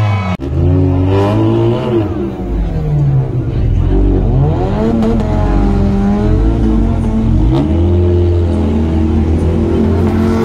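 Modified car engines revving hard through loud exhausts while drifting on dirt, the pitch climbing and falling again and again. There is a sudden brief drop about half a second in.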